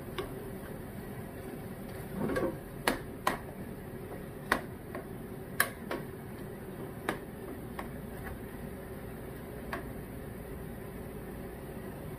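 Spoon stirring food in a cooking pot, knocking against the pot in about nine sharp clinks at irregular intervals, with a short scraping sound a little after two seconds. A steady low hum runs underneath.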